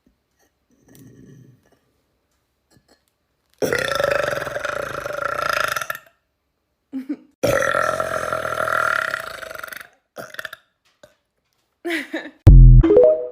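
A person burping: two long drawn-out burps of about two and a half seconds each, then a few short ones, the last a very loud, deep one near the end.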